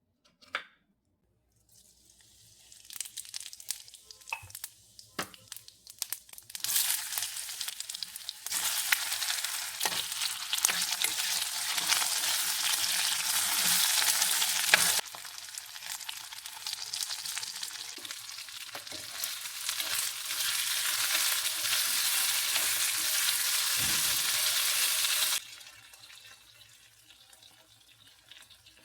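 Food frying in a pan, with sizzling and the scrapes and taps of stirring. The sizzle grows loud a few seconds in, drops suddenly about halfway, swells again and dies down near the end.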